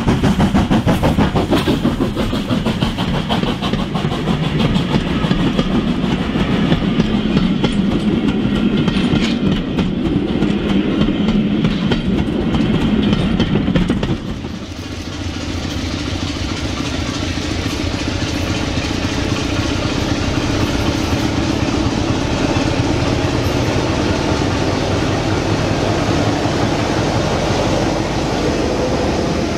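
OO gauge model trains running on the track: wheels clicking rapidly over rail joints over a steady hum as a passenger train passes. About halfway through the sound changes abruptly to the smoother, steadier running noise of a long freight train of wagons.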